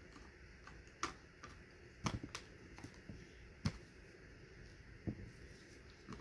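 Cardboard puzzle pieces being handled and pressed down onto a cardboard box: a handful of sharp, irregular taps and clicks, the loudest a little past the middle.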